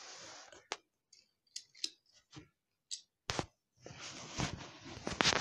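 Plastic toys being handled: scattered sharp clicks and brief rustling scrapes, growing busier over the last second and a half.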